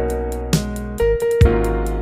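Background music: piano and keyboard over a steady beat with kick drum and hi-hat.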